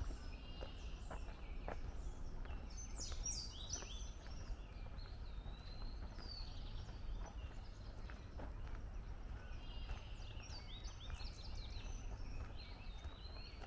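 Several songbirds singing and chirping in woodland, in clusters of quick warbling phrases, over a steady low outdoor rumble. Faint footsteps on the trail are heard now and then.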